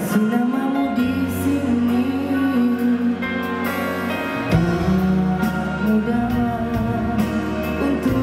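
A male pop singer singing a Malay song live into a microphone over amplified music accompaniment, with long held, sliding notes.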